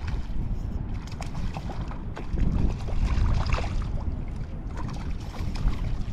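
Wind buffeting the microphone as a low rumble, with scattered small splashes and water crackle from a fish being played in the shallows.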